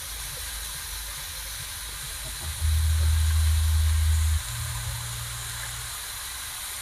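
Steady hiss of greens cooking in a wok over a straw-fed clay stove fire. About two and a half seconds in, a deep low rumble, the loudest sound, lasts nearly two seconds, then fades to a weaker low hum.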